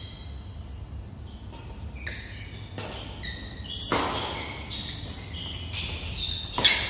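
Badminton rally: court shoes squeaking sharply on the court floor as the players lunge and turn, several times over, with a few crisp racket strikes on the shuttlecock. The loudest strike comes near the end.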